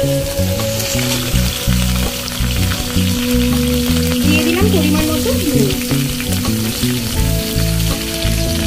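Pieces of potato, eggplant and drumstick frying in hot oil in a steel karai, sizzling steadily as a spatula turns them. Background music plays underneath.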